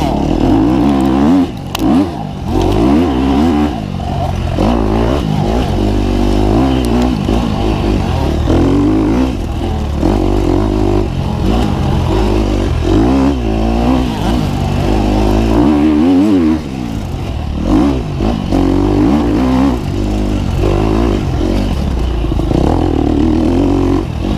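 KTM 250 XC-F four-stroke dirt bike engine revving up and down as it is ridden hard, its pitch rising and falling again and again with the throttle and gear changes, with some rattling and scraping from the bike.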